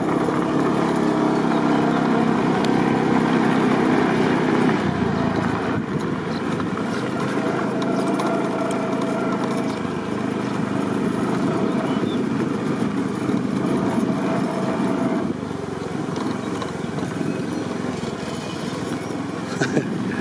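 Small motorbike engine running as it rides along, its note clearest in the first few seconds, over a steady rushing noise of wind and road.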